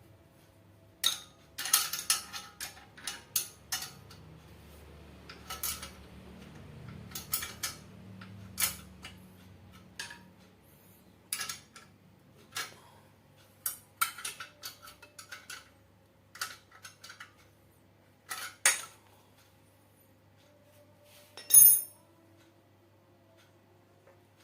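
Irregular metallic clinks and clanks of tools and metal parts being handled while a pulley and belt are adjusted, in scattered clusters, the loudest near the end.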